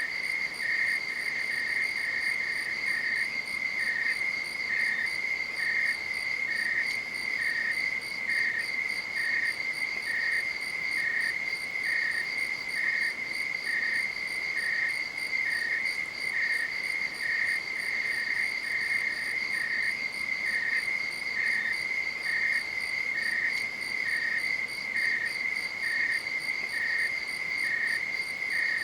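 Night insects calling: a continuous high-pitched trill, with a second insect giving short, evenly spaced chirps just below it, about one a second.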